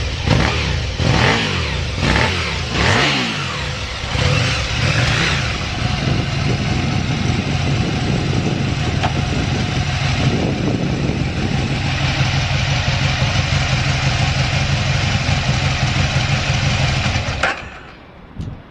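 Aprilia Tuono 1000R's V-twin engine blipped through several quick revs, then idling steadily with no odd noises, before being switched off and stopping suddenly near the end.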